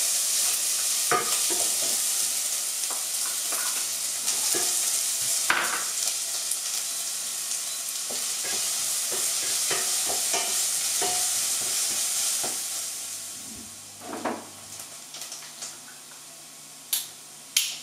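Chopped onion dropped into hot melted lard in a pot and sizzling hard, stirred with a spoon that clicks and scrapes against the pot. The sizzle dies down about thirteen seconds in, followed by a few sharp clinks near the end.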